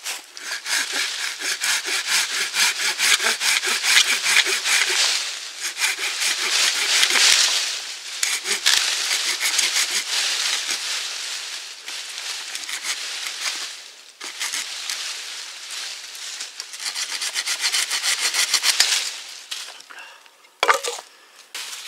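Fiskars folding hand saw cutting through a dead birch log in rapid back-and-forth strokes, with a few short pauses between runs of sawing.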